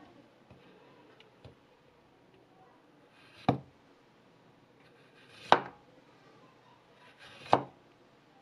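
Chef's knife with a VG10 Damascus blade slicing through an orange. Each cut swells briefly and ends in a sharp knock of the blade on a wooden cutting board, three cuts about two seconds apart.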